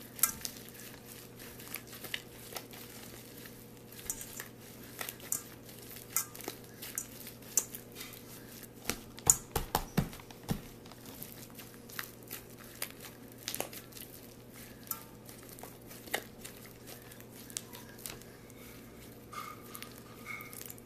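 Fluffy slime made from glue and shaving cream being squeezed and kneaded by hand, giving an irregular scatter of small wet clicks and crackles, with a few louder pops around nine to ten seconds in.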